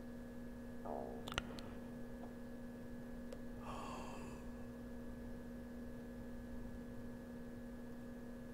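Quiet pause in a whispered recording: steady electrical hum from the microphone setup, with a single sharp click about a second and a half in and a brief soft hiss, like a breath, around four seconds in.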